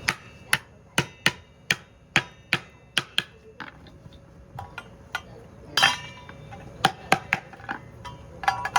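Hammer blows on a wooden brick mould, nailing it together. A quick run of about three strikes a second for the first three seconds is followed by scattered blows, the loudest about six seconds in with a brief ring.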